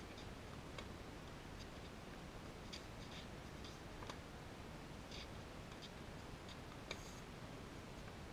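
Faint, sharp pops of a tennis rally, from the ball being struck by racket strings and bouncing on the hard court, over a steady faint hiss. The loudest pop comes about seven seconds in.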